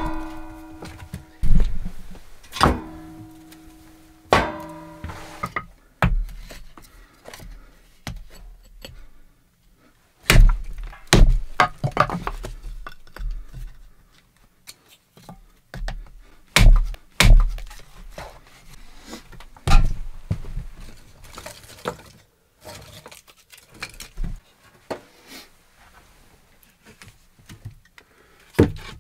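A hatchet splitting kindling on a wooden block: a run of sharp wooden knocks and cracks, bunched in the middle. Before that come a few metal clanks that ring briefly, from the small steel wood stove. Near the end there is a knock as split wood goes into the firebox.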